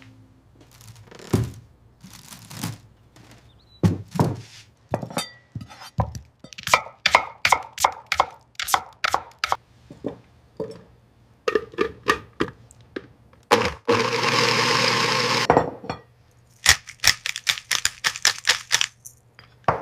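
Kitchen knife chopping on a cutting board in quick runs of sharp strikes, about three a second, with a few heavier thuds. About fourteen seconds in, a hissing burst lasts roughly two seconds.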